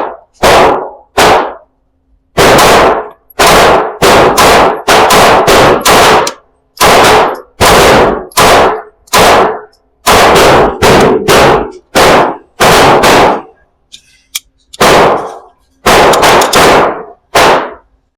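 Derya DY9 Island 9mm pistol, a Turkish Glock 19 clone, firing a long string of about thirty shots in quick runs of two to five, with short pauses between, including a longer one about two thirds of the way through.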